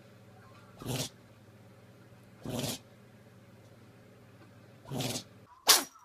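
Small dog sneezing three times, a second and a half to two and a half seconds apart. Near the end comes a single louder, sharper sneeze from a cat.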